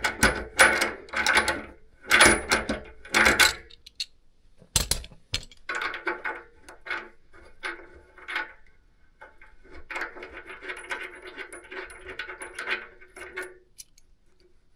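Brass radiator valve fittings clinking and scraping as they are handled and screwed together, in irregular bursts, with one sharp knock about five seconds in.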